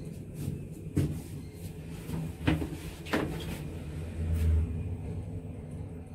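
Elevator car in motion with a steady low hum, broken by a few sharp knocks and a heavier dull thump about four seconds in.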